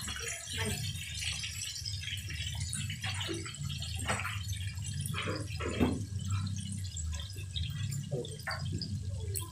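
Chicken pieces deep-frying in hot oil in an aluminium wok, the oil sizzling and crackling, with metal tongs scraping and knocking against the pan as the pieces are turned. A steady low hum runs underneath.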